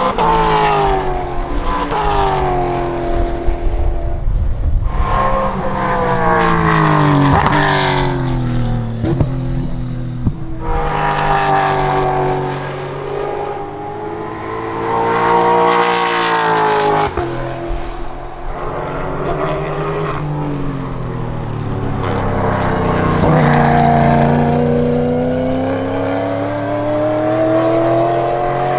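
MARC Ford Focus race car's 5.0-litre Coyote V8 at racing speed, passing several times. Its pitch climbs under acceleration and drops on lifts and downshifts, with a few sharp exhaust pops on the overrun.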